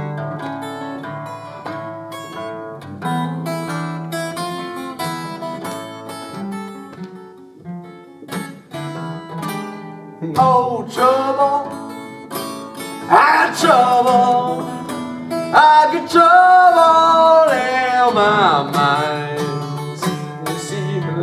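Fingerpicked acoustic guitar playing a blues instrumental break. About halfway through, a man's wordless singing with wavering pitch joins over the guitar.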